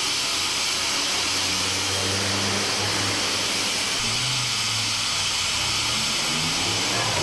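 Steady hiss of steam escaping from a Brienz Rothorn Bahn steam cog-railway locomotive standing still, with no exhaust beats.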